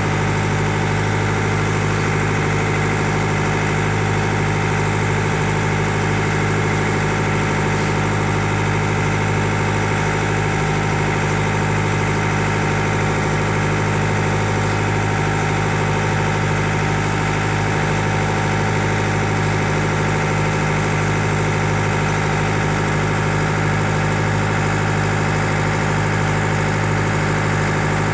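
An engine aboard a fishing boat running steadily at idle, a constant low hum.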